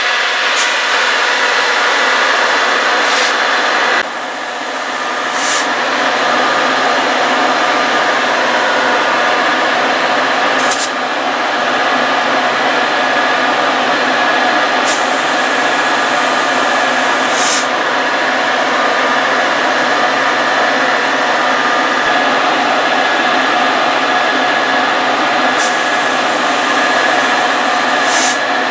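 Metra EMD F40PH diesel locomotive running at a steady, high engine speed with a loud, even drone and whine, the way these units run to supply head-end power to the passenger cars. A few brief high hisses break in now and then.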